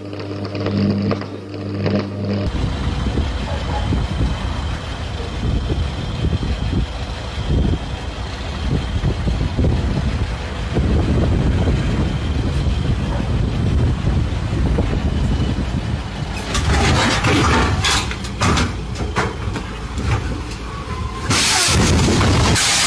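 Diesel engine of a motor grader running with a low rumble as it climbs onto a flatbed truck. Near the end come loud crashing and clattering bursts as the grader tips over on the bed.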